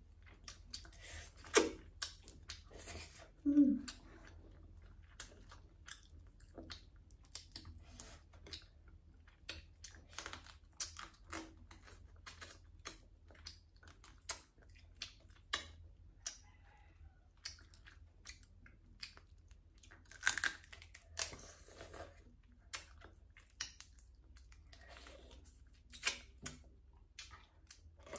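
Close-miked eating sounds: chewing and smacking on fried crab, with the shell cracking and crunching in irregular sharp clicks. About three and a half seconds in comes a brief low mouth sound that falls in pitch.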